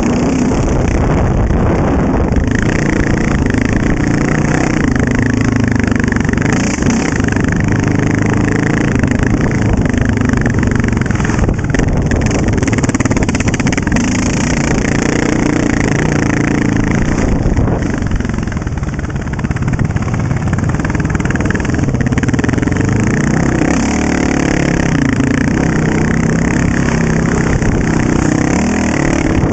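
Honda TRX700XX quad's single-cylinder engine running under changing throttle, its pitch rising and falling as it pulls along the trail. About two-thirds through, the throttle is briefly let off and the engine drops, then picks up again.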